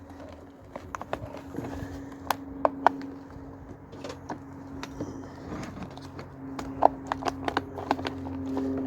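Irregular clicks and knocks of plastic appliance parts being handled and pried at while a floor cleaner is taken apart, over a steady low hum.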